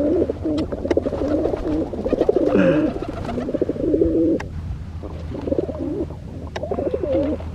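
Pigeons cooing, repeated bubbling coo phrases from more than one bird overlapping, with a few sharp clicks.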